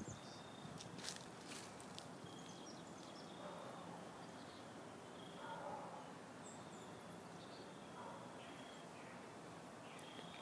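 Faint outdoor ambience: short chirps repeated at one high pitch, roughly once a second, typical of insects, with a few higher bird chirps over a steady hiss. A few sharp clicks about a second in.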